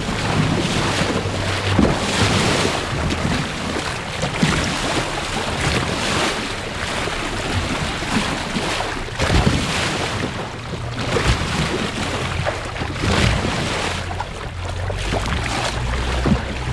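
Water rushing and splashing along the hull of a moving boat, with wind buffeting the microphone in gusts.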